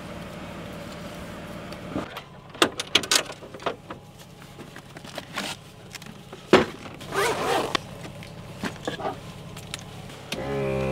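Gear being handled in a vehicle's slide-out storage drawer: scattered clicks and knocks, one sharp knock midway, and rustling of straps and bags. Near the end a small motor starts suddenly and runs with a steady hum.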